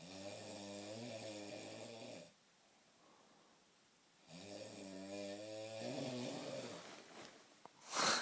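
A sleeping man snoring heavily through his nose: two long, deep, buzzing snores with a pause between them. Just before the end comes a short, sharp burst, the loudest sound here.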